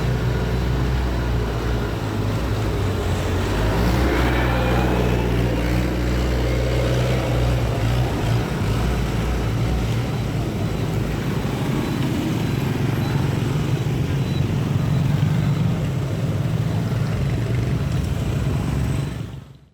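Street traffic: steady engine noise from passing motor vehicles, with one vehicle rising and falling in pitch as it passes about four seconds in. It fades out at the very end.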